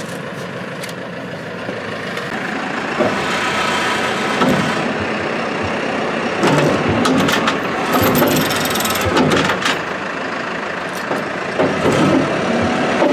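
Tractor engine running and getting louder about two seconds in as it pulls the chains tight against the scraper pan's bent steel sideboard, with scattered metallic clanks and knocks from the chains and steel under strain.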